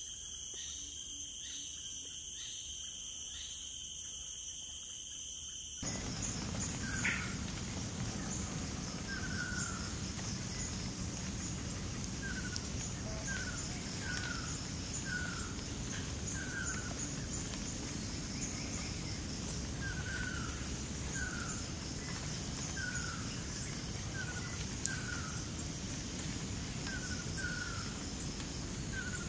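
Forest ambience: a steady high insect drone, with a bird repeating short, falling whistled notes, often in pairs, every second or so.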